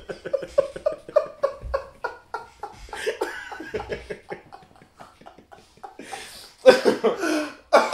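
Men laughing hard: a fast run of short "ha" pulses that tails off, then louder breathy outbursts of laughter near the end.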